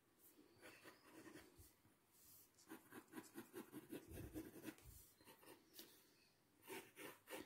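Graphite pencil scratching faintly on drawing paper in short strokes, with a quicker run of about four strokes a second in the middle as lines are gone over and shaded.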